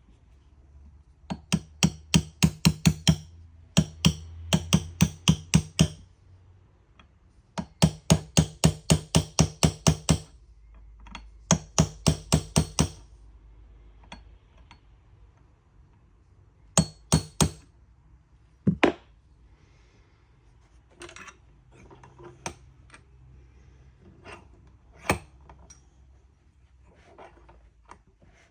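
Light hammer taps on metal, in four quick runs of about five taps a second, then a few scattered single knocks: seating the extractor in a Smith & Wesson M&P Shield pistol slide.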